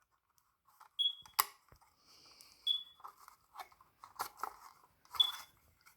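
Smoke alarm giving three brief, high chirps while its plastic housing and battery compartment click and knock as the 9V battery is being taken out.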